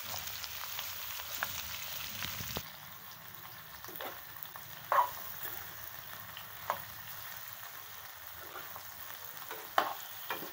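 Chopped tinda (round gourd) sizzling in hot oil in a kadhai while a spatula stirs it, knocking against the pan a few times, loudest about five seconds in and near the end. The sizzle turns quieter about two and a half seconds in.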